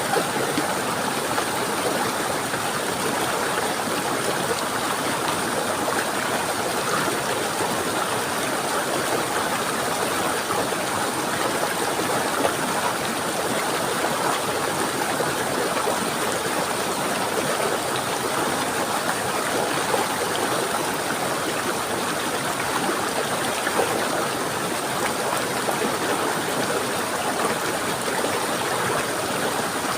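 Running water flowing steadily, an even, continuous rush with no breaks or changes.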